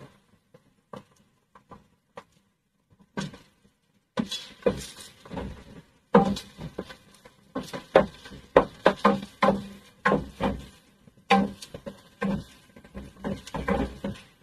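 Wooden spoon stirring and turning chicken pieces in a metal pot while they sauté, with irregular scrapes and knocks against the pot from about four seconds in. Before that, a few light clicks as black pepper is shaken over the chicken.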